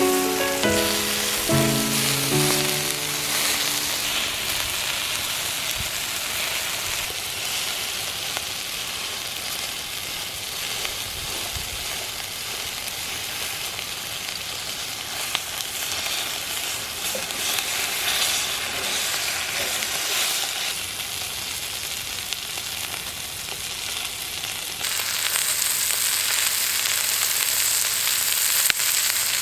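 Lamb rack sizzling and spitting on a hot iron griddle over a wood fire, a steady hiss with fine crackles. A song's last notes fade out in the first few seconds, and about 25 s in the sizzle turns brighter and a little louder.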